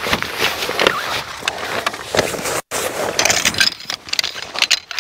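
Rustling and scraping of camping gear being handled and pulled out of motorcycle luggage, with scattered sharp clicks and a brief break about two and a half seconds in.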